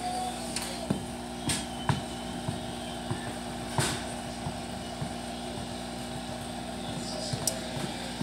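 Steady mechanical hum of aquarium equipment, such as a filter or air pump, with a few sharp clicks and taps scattered through it.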